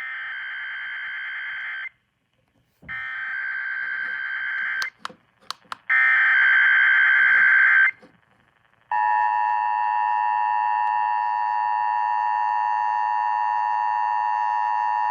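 Emergency Alert System Required Monthly Test received over an FM radio: three SAME digital header bursts, each a harsh buzzing data burst about two seconds long with roughly a second of silence between them, and a few sharp clicks between the second and third. About nine seconds in, the steady two-tone EAS attention signal starts and holds.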